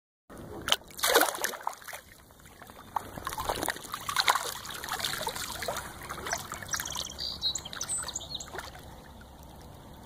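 Water splashing and trickling in a run of irregular splashes, the loudest about a second in.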